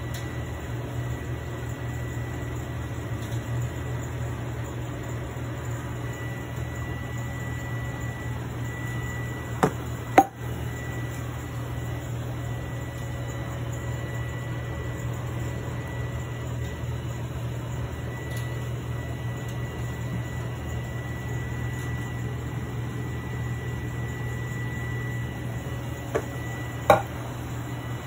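Steady machine hum with a faint, thin high whine over it; two pairs of sharp knocks, one about ten seconds in and one near the end.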